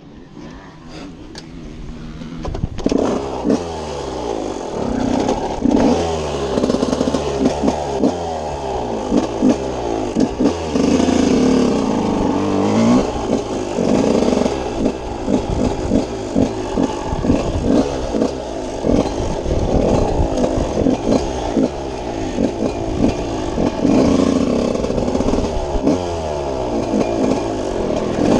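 TM Racing 125 single-cylinder two-stroke motocross bike engine, heard close up from on board, revving up and down again and again as it is ridden through the gears. It is quieter for the first couple of seconds before it gets loud.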